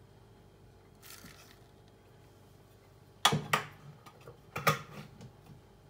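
A tablespoon of oat flour tipped into a plastic food processor bowl of chopped peas: a soft rustle about a second in, then a few sharp knocks of the spoon against the bowl around three and a half and four and a half seconds in.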